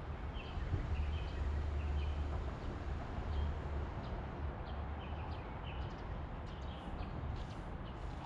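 Birds chirping in short, scattered calls over a steady low rumble and outdoor hiss.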